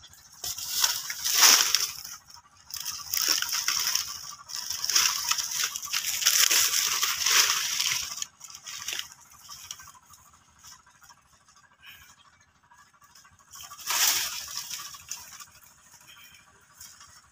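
Dry banana leaves and stalks rustling and crackling in bursts as monkeys climb and tear at the banana plant. The bursts come one after another through the first eight seconds, then once more near the end.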